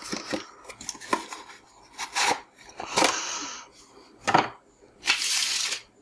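Cardboard box of a Metasol magnetic contactor being handled and opened: a few short knocks and scrapes, then nearly a second of dense rustling near the end as the contactor comes out of the box.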